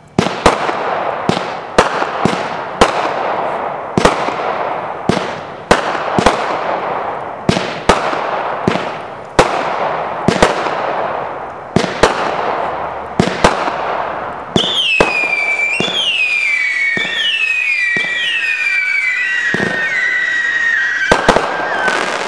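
Black Cat Rebel Rouser firework cake firing a rapid series of shots, about two a second, each followed by a fading hiss. About two-thirds of the way in it switches to a run of overlapping whistles that fall in pitch. A couple of sharp bangs come near the end.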